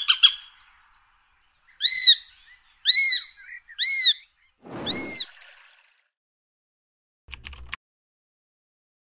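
Eurasian sparrowhawk calling: the tail of a rapid chattering series, then four drawn-out calls about a second apart, each rising and falling in pitch. A short faint crackle near the end.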